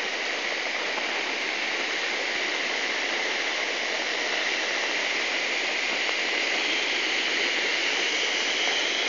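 Floodwater rushing past in a swollen river, a steady, unbroken rush of water.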